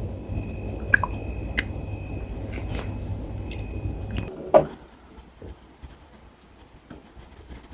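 Chicken soup being ladled out of a cooking pot: a metal ladle clicks against the pot and liquid splashes and drips, over a steady low rumble that stops about four seconds in, with a sharper knock just after.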